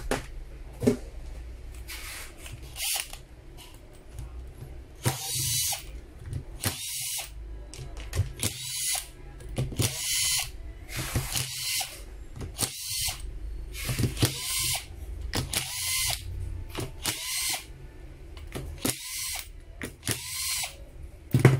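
INGCO 12V cordless screwdriver running in about a dozen short bursts, each under a second, backing the screws out of a power drill's plastic housing. Lighter clicks and handling come first, before the bursts begin about five seconds in.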